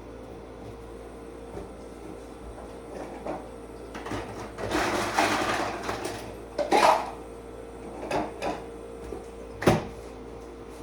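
Household handling sounds: a rushing noise lasting over a second around the middle, then several knocks and clunks, like cupboards, drawers or a glass being handled, over a steady faint hum.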